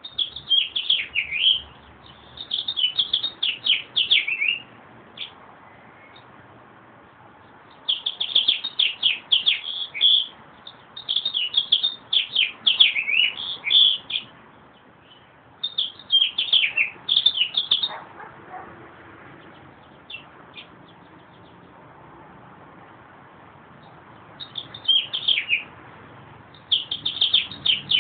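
Meadowlark singing: short phrases of quick falling notes, about seven of them, repeated every few seconds, with a longer pause in the second half.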